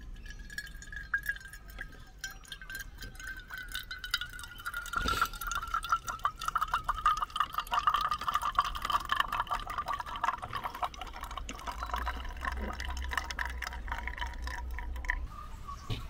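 Espresso from a ROK manual lever espresso maker trickling and dripping in a thin stream into a mug, with a faint ringing tone that slowly drops in pitch as the shot runs. The flow thins out near the end.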